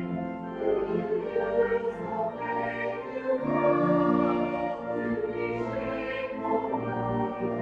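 Voices singing a hymn together in a choir, held notes moving in steady chords, over an instrumental accompaniment.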